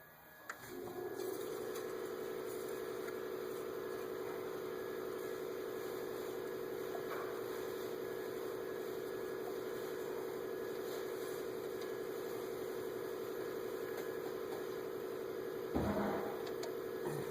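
A steady machine hum starts about a second in and holds at one pitch, with a brief clunk near the end.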